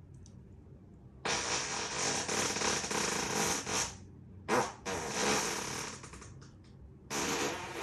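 A man farting in a series of raspy bursts: a long one of nearly three seconds, a brief one, another lasting about a second, and a shorter one near the end.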